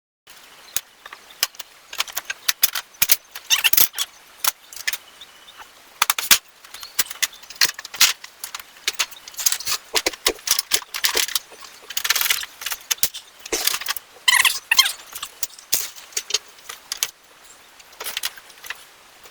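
Irregular metallic clinking and rattling: small metal parts and hand tools being handled, with many sharp clicks close together.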